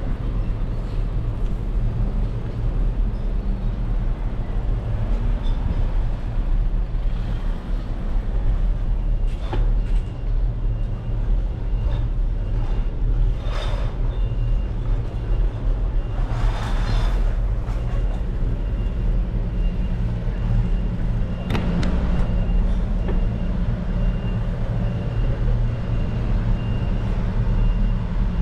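Diesel trucks idling close by, a steady low engine rumble, with two short hisses of air from truck air brakes around the middle. A faint high tone sounds through the second half.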